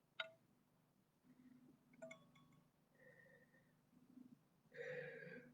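Near silence broken by two faint, sharp chime-like clinks that ring briefly, then a soft deep breath near the end.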